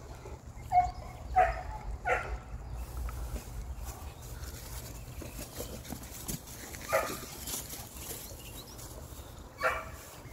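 Presa Canario dogs, a 14-week-old puppy and its mother, playing tug-of-war on a hanging toy and giving about five short barks. The loudest come in the first two seconds and the last one near the end.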